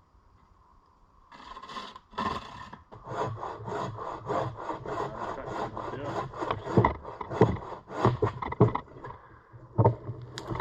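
Hand saw cutting through wood in quick, even back-and-forth strokes, about three a second, stopping shortly before the end.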